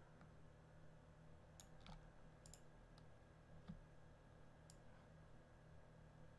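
A handful of faint, scattered computer mouse clicks over near-silent room tone with a low steady hum.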